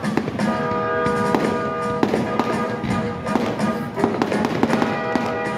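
Fireworks bursting and crackling in quick, irregular bangs, over loud music with held chords.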